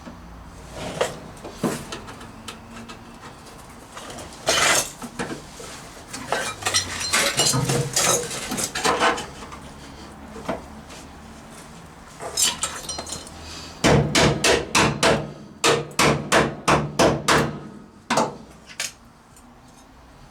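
Hammer blows on a poorly fitting replacement rear bump stop mount being worked into place on a Rover P6 body: scattered knocks, then a quick, even run of about a dozen strikes, roughly three a second, near the end.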